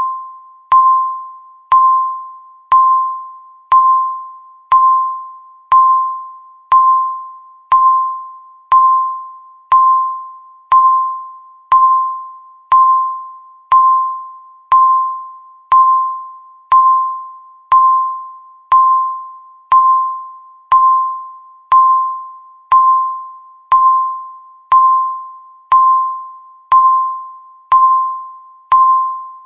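Countdown timer beeping once a second: each beep is a single bell-like electronic tone that starts sharply and fades away before the next.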